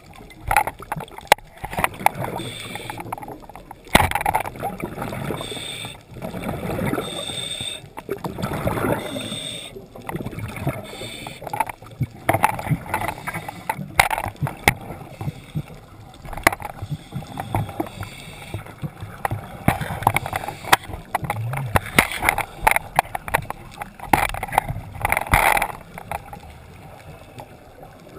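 Underwater sound through a diver's camera housing: water noise and gurgling bubbles, with many irregular clicks and knocks from gear moving against the housing. There is a sharper knock about four seconds in.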